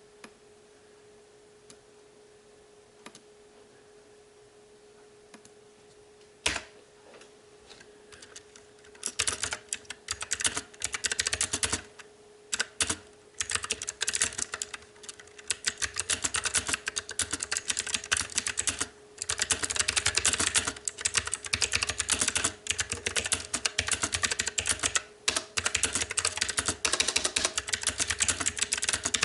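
STOGA retro-typewriter mechanical keyboard with blue clicky switches being typed on. A few single key clicks come first, then fast, continuous clicky typing with short pauses starts about a third of the way in. A faint steady hum sits underneath.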